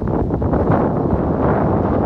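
Wind buffeting the microphone: a loud, steady, low rush of gusting wind with no let-up.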